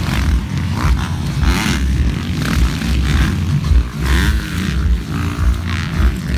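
Several motocross dirt bikes racing, their engines revving up and falling back again and again as they take the jumps, over a heavy uneven low rumble.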